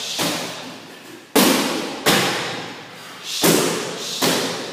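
About five hard kicks smacking into a padded kick mitt, roughly a second apart, each impact followed by a long echo.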